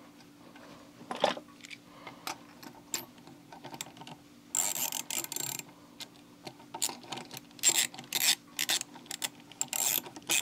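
Hand socket ratchet clicking in short strokes as bolts are tightened down, with a longer run of clicks about halfway through and quick bursts after that.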